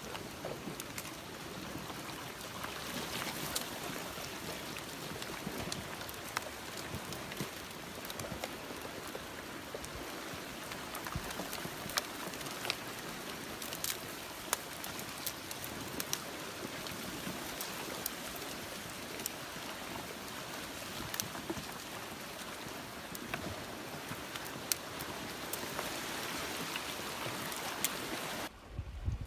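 Flash-flood water rushing: a steady wash of noise with scattered sharp clicks through it. It drops away abruptly near the end.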